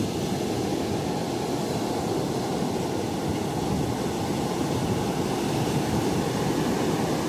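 Steady, unbroken rumble of a fishing boat's engine running while under way at sea.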